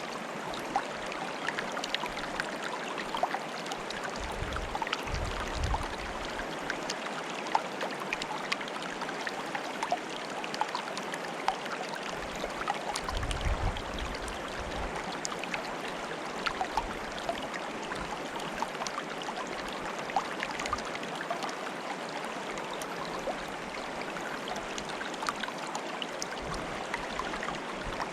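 Water bubbling and trickling in a stream: a steady rush dotted with many small sharp pops and plinks. A brief low rumble comes twice, about five and thirteen seconds in.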